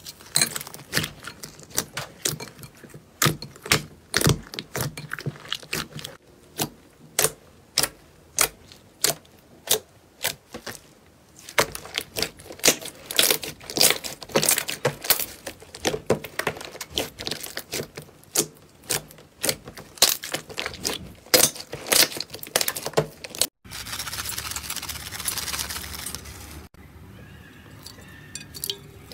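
Thick slime squeezed and kneaded by hand, giving a long run of sharp, irregular pops and clicks from trapped air. After a sudden cut near the end come a few seconds of steady hiss-like noise, then quieter, softer sounds.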